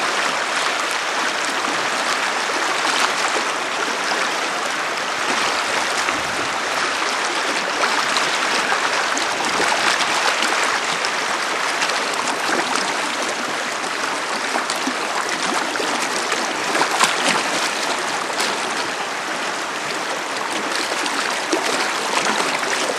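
Shallow river water rushing over a rocky bed: a steady hiss of moving water.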